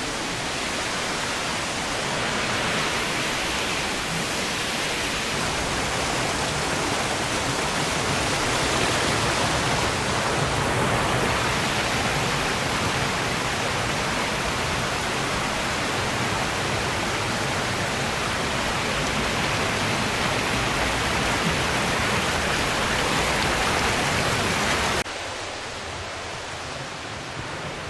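Rushing water of a gorge stream and its falls, a steady full hiss. It drops suddenly to a quieter level near the end.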